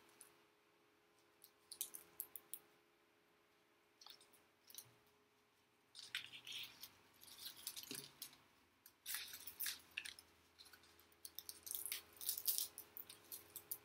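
Dry brown leaves crunching and crackling as they are pressed down onto glue, in several short bursts of crackles with quiet gaps between.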